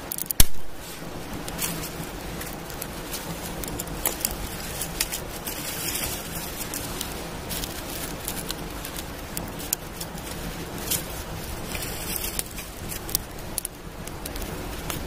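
Small twig campfire crackling as sticks and a thick branch are laid onto it, with scattered short clicks. One sharp knock about half a second in is the loudest sound.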